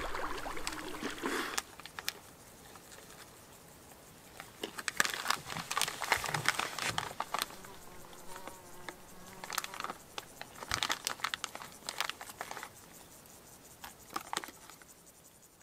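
Water splashing for the first second or so, then the crinkle and rustle of food packaging handled in short bursts, with a faint insect buzzing past.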